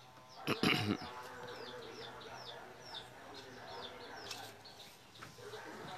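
A small bird chirping over and over, two or three short calls a second, with a brief loud noise about half a second in.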